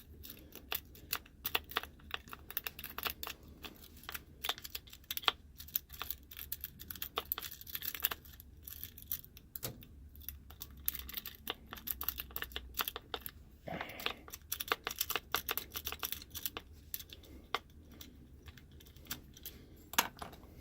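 A lock pick working the pin tumblers of a Wiser knob lock cylinder: a dense run of small, irregular metal clicks and scratches, with a brief scrape about fourteen seconds in.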